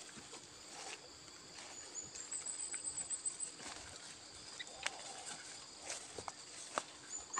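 Footsteps and rustling through tall grass and undergrowth, with plastic bags swishing, over steady insects chirring; a pulsed insect trill runs high up from about two seconds in to about three and a half.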